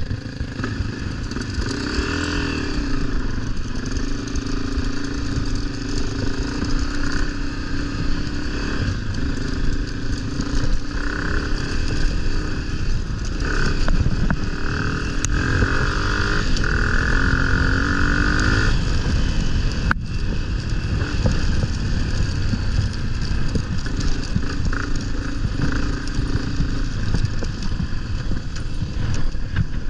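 A vehicle engine running under a heavy low rumble, its revs rising and falling several times.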